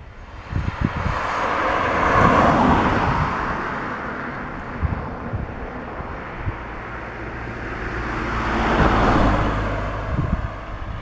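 Two road vehicles passing close by one after the other, the tyre-and-engine noise of each swelling and fading: one peaks about two seconds in, the other near nine seconds.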